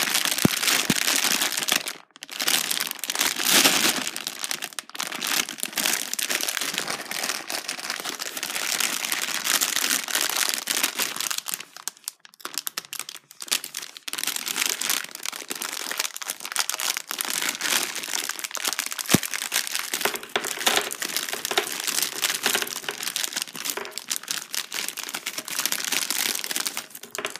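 Plastic candy bag crinkling and rustling as it is handled and opened, with two brief pauses.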